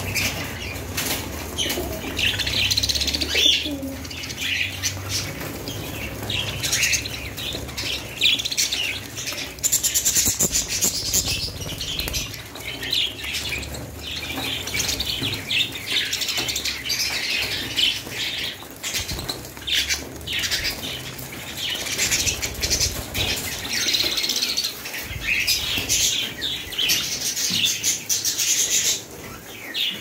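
A large flock of budgerigars chattering and chirping together, a dense, continuous high-pitched chatter of many overlapping short calls.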